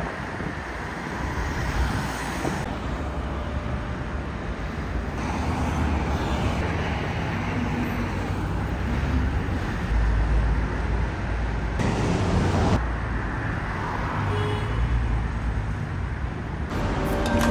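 City street traffic: cars driving past at low speed. About ten seconds in, a deeper rumble from a passing vehicle grows louder.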